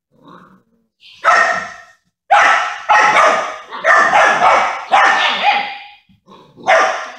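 A puppy barking in play: a string of about seven sharp, high-pitched barks, roughly one every half second to a second, given during a play bow.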